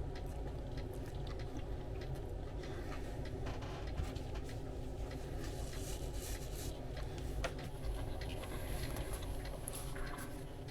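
Faint chewing of a sub sandwich, with scattered small clicks of eating, over a steady low room hum.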